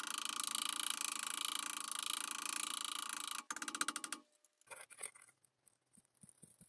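Ball-peen hammer tapping rapidly on a steel rivet and plate over a railroad-rail anvil, peening the rivet over, the metal ringing; the hammering stops about four seconds in. A few light clicks follow from a hand-lever punch.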